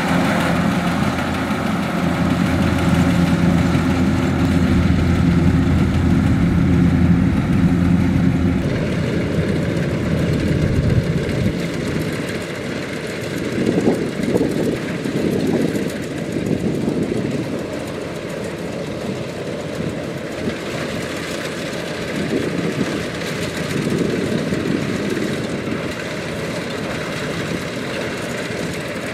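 Kubota DC-105X rice combine harvester running as it cuts: a steady engine hum for the first eight seconds or so, then after a sudden change a rougher, uneven machine rumble.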